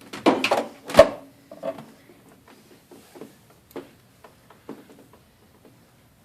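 Scraping and knocking from hands and a tool working at a throttle body, cleaning grime out of its throat. A quick flurry of rubs and knocks, with one sharp knock about a second in, then scattered light clicks and scrapes that thin out.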